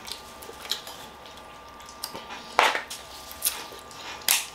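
Eating crab legs and lobster tails by hand: a few short sharp cracks and clicks of shell, the loudest about two and a half seconds in and again near the end, amid wet handling and smacking sounds.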